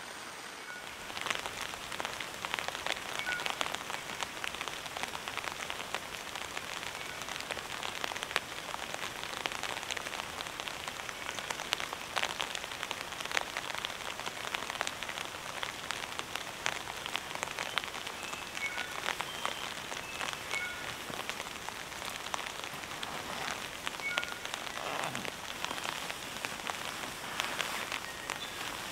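Steady heavy rain falling on a tarp and the surrounding grass and trees, a dense patter of individual drop hits that picks up about a second in and then holds steady.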